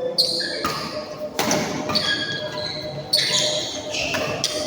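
Badminton rally in a sports hall: several sharp racket strikes on the shuttlecock at irregular intervals, with short high squeaks of shoes on the court floor between them.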